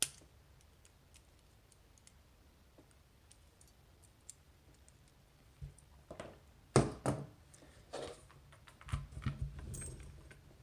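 Small metal clicks and scrapes of a C-clip being worked off the back of an Assa 600 lock cylinder with a tool. Faint ticking at first, then a few sharp clicks about six seconds in and a burst of rattling clicks near the end.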